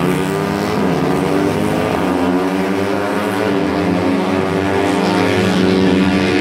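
Several Yamaha Y15ZR 150cc single-cylinder four-stroke underbone race bikes running hard together as a group, their engine notes overlapping and dipping and rising in pitch as they go through the corners.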